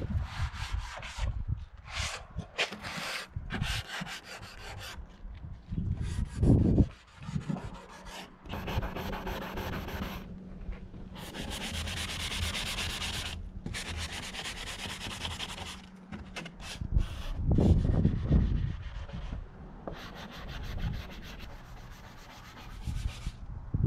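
Fine 220-grit sanding sponge rubbed by hand over the painted edges of a bed's headboard and footboard in repeated back-and-forth strokes, with a longer continuous stretch in the middle, scuffing through the fresh paint to distress it. A couple of louder low bumps come about a quarter and three quarters of the way in.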